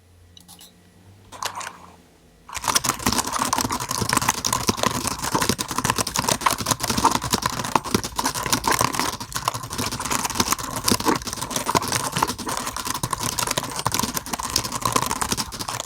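Fast touch typing on a mechanical keyboard: after a few faint clicks, a dense, rapid clatter of keystrokes starts about two and a half seconds in and keeps going at a steady pace.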